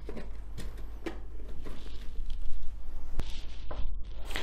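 Light rustling and scattered small clicks of a cardboard box and its packaging being handled and opened by hand. The sound cuts off abruptly a little after three seconds in, leaving quiet room tone.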